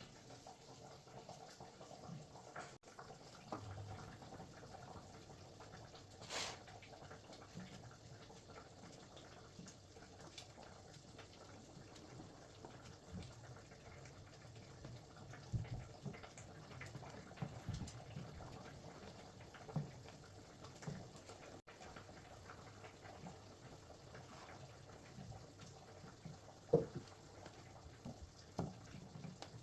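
Faint household handling sounds: scattered light clicks and knocks over a steady low hum, with a short hiss about six seconds in and a sharper click near the end.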